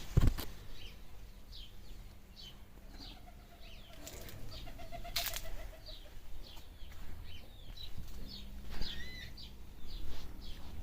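Small birds chirping over and over in short high notes, with a lower wavering call from about three to five seconds in. Sharp knocks come just after the start and about five seconds in.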